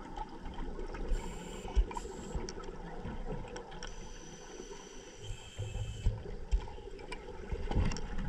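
Underwater sound through a camera housing: a steady motor hum from Seacraft DPV scooters, with faint high whines coming and going and a few scattered clicks.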